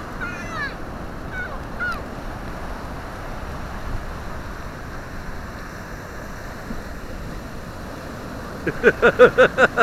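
Ocean surf washing steadily onto the beach. A few short, high falling calls sound in the first two seconds, and near the end a person's voice makes a quick run of short pulses, about five a second.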